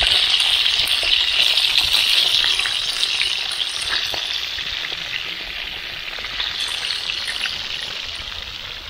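Whole fish frying in hot oil in a pan over a campfire: a steady sizzle with small scattered crackles, slowly fading.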